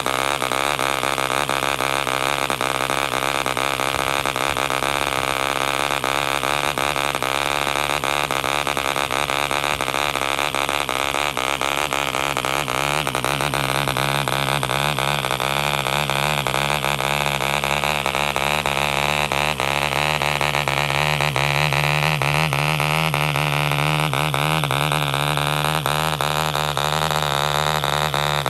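1948 "K" Vulture Mk. 1 5 cc front-rotary-valve model diesel engine running steadily on a test stand and driving a propeller, its speed drifting slightly down and back up.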